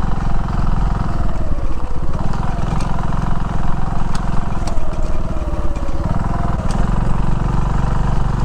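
TVS XL100's 99.7 cc single-cylinder engine running under way on a rough road, its note dipping and picking up again twice, with a few sharp knocks over it.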